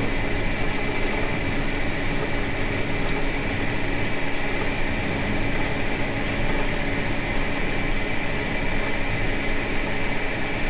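Combine harvester running steadily while harvesting corn: a constant machine drone with a steady high whine.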